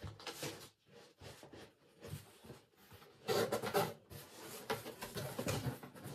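Rustling and rubbing of packaging as items are handled in a cardboard box, in irregular bursts, loudest a little over three seconds in.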